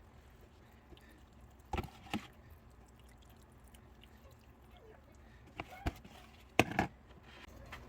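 A few scattered knocks and clatters, as of things being handled and set down, over a faint steady background; the loudest pair comes near the end.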